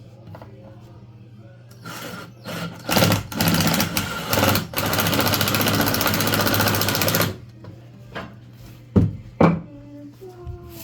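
A handheld power tool used on wood framing, run in several short bursts and then held on steadily for about two and a half seconds. Two sharp knocks follow near the end.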